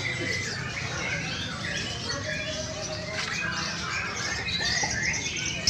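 Several caged white-rumped shamas (murai batu) singing at once, a dense tangle of varied whistles and chirps, over a steady low background din.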